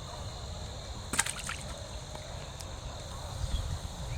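A short splash of water about a second in, over a steady low rumble.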